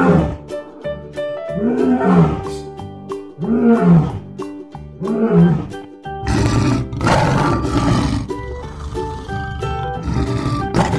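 Lion roaring over light background music: four drawn-out roars about a second and a half apart, each rising then falling in pitch, then from about six seconds in a louder, rougher, continuous roaring.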